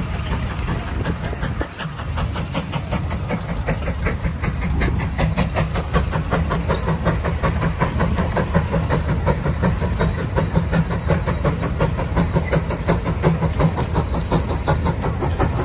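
Exhaust of the 150 Case steam traction engine chuffing in a quick, even beat as it pulls a long gang plow under load, over a steady low rumble. The beat grows sharper from about four seconds in.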